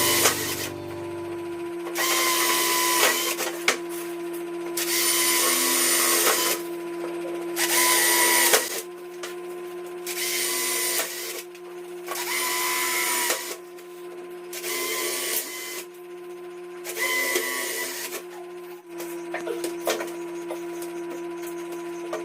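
Power drill running in about eight short bursts of a second or so each, its motor whining, with a steady low hum underneath.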